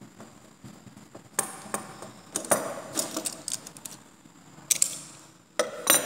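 Sharp metallic clicks and knocks from a copper-tube refrigerant line with brass flare fittings, filter drier and solenoid valve being handled on a wooden table, in irregular clusters with the loudest knocks about a second and a half in and near the end.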